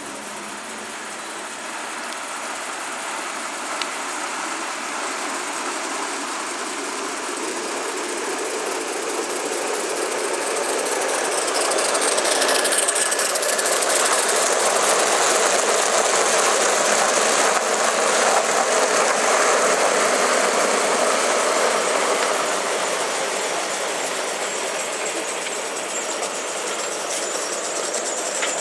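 Gauge 1 live-steam model of a Chesapeake & Ohio articulated steam locomotive running along the track, a steady hiss of steam with wheel clatter on the rails. It grows louder to a peak around the middle and then eases off as it passes.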